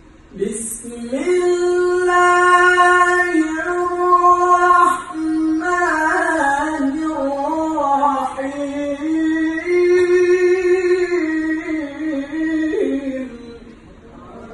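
A man's solo Quran recitation (tilawah) sung in the ornamented melodic style of a competition qori. He slides up into a long held note, moves through wavering melismas and further held notes, and lets the phrase fall away shortly before the end.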